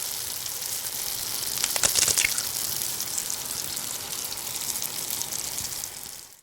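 Kitchen cooking noise: a steady crackling hiss that swells briefly about two seconds in and cuts off suddenly near the end.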